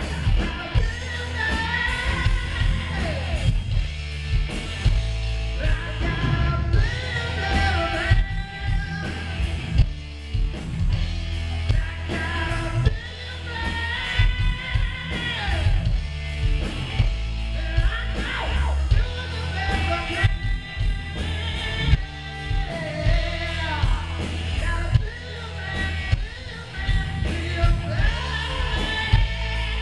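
Live rock band playing: a vocalist singing into a microphone over electric guitar, bass guitar and a drum kit.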